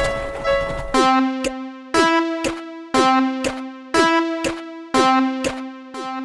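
Cartoon level-crossing warning signal in a synthesized, keyboard-like tone: a pitched chime struck about once a second, each followed half a second later by a softer click, over a held low note. About a second in, a denser buzzing tone cuts off and the chiming begins.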